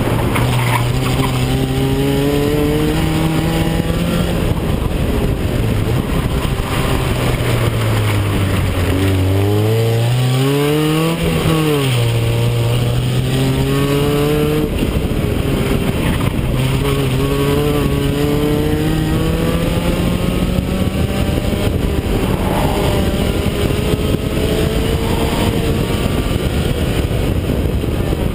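1987 Toyota MR2's four-cylinder engine driven hard through an autocross course. The revs climb, drop and climb again several times, with a quick rise and fall about twelve seconds in and a long steady climb in the second half. Steady wind noise runs underneath, heard from a camera on the outside of the car.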